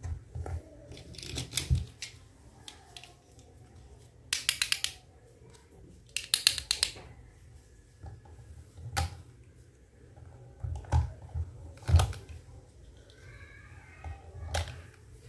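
Small plastic toy kitchen pieces clicking and clattering as they are handled and hooked onto a plastic rack, with two quick runs of rapid clicks about four and six seconds in and single sharp clicks after that.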